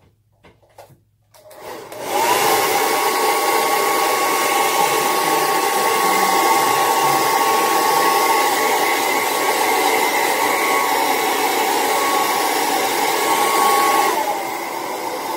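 Handheld hair dryer switched on about two seconds in, spinning up to a steady rush of air with a high whine. Near the end the whine drops to a lower, quieter pitch as it slows.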